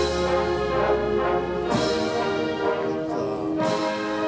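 Orchestral background music with brass, slow held chords that change about every two seconds.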